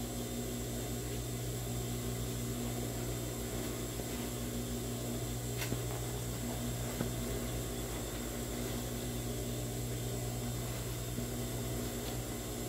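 Steady low electrical hum with a faint high hiss, under soft rustling of cloth as a stuffed cushion insert is pushed into its fabric cover.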